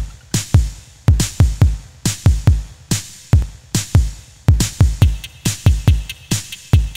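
Background electronic music with a steady drum-machine beat of deep kicks and sharp snare hits.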